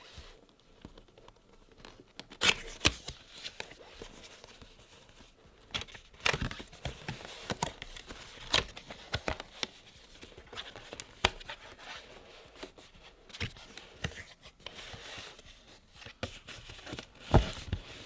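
Seal being torn open on a cardboard product box and the packaging handled: irregular rips, rustles and sharp little clicks and knocks.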